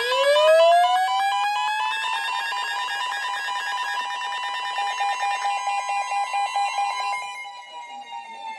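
An alert siren winding up from a low pitch to a steady wail over the first second or two, holding, then starting to wind down near the end. Beeping alarm tones sound alongside it until about five and a half seconds in.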